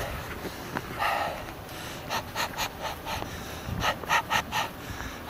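A man panting hard in short, rapid breaths, about four a second in runs: he is out of breath after fast walking.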